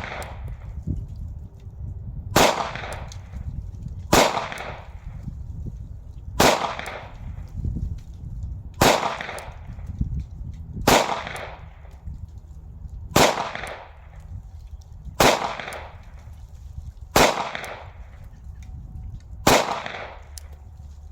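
Glock 43 9mm pistol fired slowly and singly, about ten shots roughly two seconds apart, each a sharp crack with a short ringing tail. The full aftermarket Shield Arms Z9 magazine feeds every round, but the slide does not lock back after the last one, which the shooter puts down to a high grip riding the slide release.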